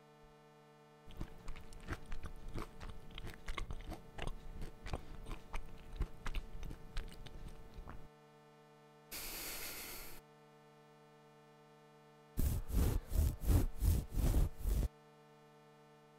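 Close-miked crunching and chewing sounds. A crackly run of small clicks lasts several seconds, followed by a short hiss and then a louder burst of deep crunches. A faint steady hum runs underneath.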